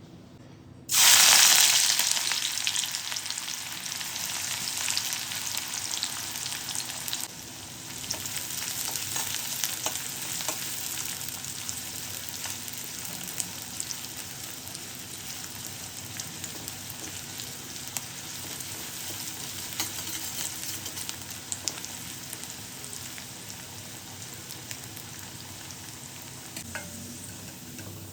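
Food dropped into hot oil about a second in, sizzling loudly at first and then frying steadily, with occasional taps and scrapes of a spatula stirring in the pan.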